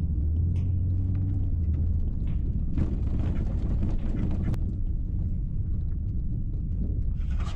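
Honda Ridgeline's 3.5-litre V6 pulling the truck along a sandy, rutted dirt trail, heard from inside the cab: a steady engine drone for the first couple of seconds, then rumble from tyres and suspension with scattered knocks and rattles and a stretch of rushing noise about three seconds in.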